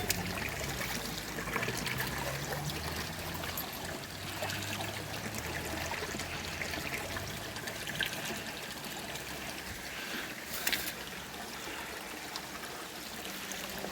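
Stream water trickling and flowing steadily, with a brief sharp sound near the end.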